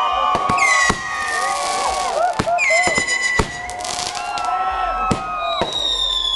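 Consumer fireworks going off. Several whistling fireworks shriek at once, each tone dropping a little in pitch and then holding, over a string of sharp bangs and crackling.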